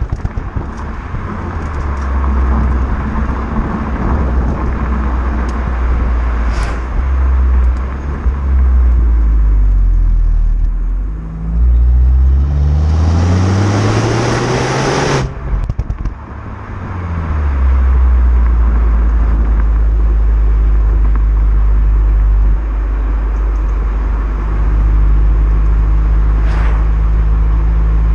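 Renault Mégane GT's turbocharged 1.6 TCe four-cylinder through its stock exhaust in Neutral drive mode. The engine note rises steadily in pitch about halfway through and drops off abruptly, then settles into a steady low drone.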